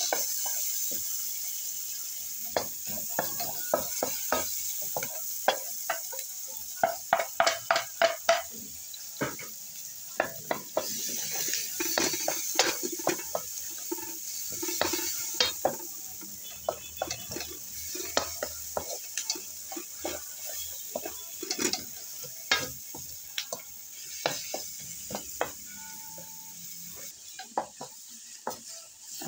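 Wooden spatula stirring chopped onions and minced meat in a hot oiled pan: frequent knocks and scrapes against the pan over a steady frying sizzle.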